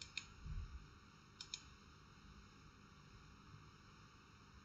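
Computer mouse button clicking faintly: two quick pairs of clicks, one at the start and one about a second and a half in.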